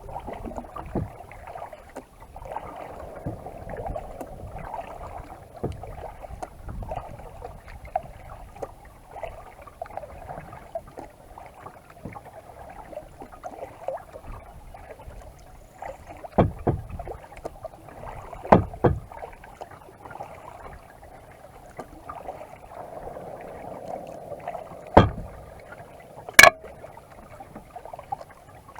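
Kayak being paddled: steady splashing and lapping of water from the paddle strokes, with a handful of sharp knocks in the second half.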